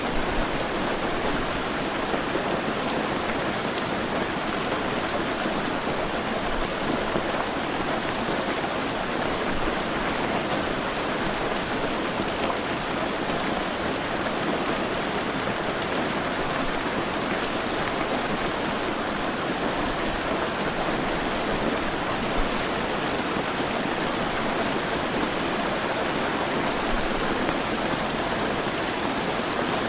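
Heavy rain falling steadily, a dense even hiss of drops on surfaces without pauses or surges.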